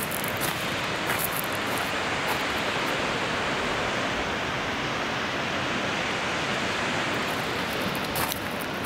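Steady, even rushing noise with no pitch, with a few short clicks near the start and near the end.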